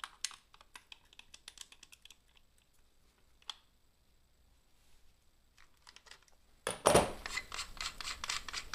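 Flash hider on a submachine gun barrel being worked loose and unscrewed, with the crush washer behind it. Scattered light metal clicks at first, then a quiet stretch, then a louder run of rapid clicking and scraping near the end as it spins off the threads.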